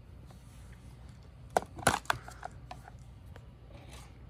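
Handling noise: a few short clicks and knocks, bunched about a second and a half to two seconds in, over a faint steady room hum.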